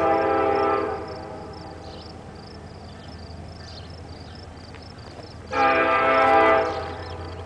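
Diesel locomotive's multi-chime air horn, sounding from the approaching train, which is not yet in sight. One blast ends about a second in and a second blast comes about five and a half seconds in, with a low steady rumble between them.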